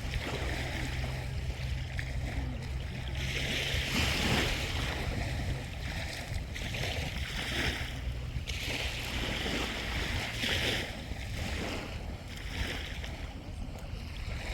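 Waves washing on the shore, their hiss swelling and falling every couple of seconds, over a steady low rumble of wind on the microphone.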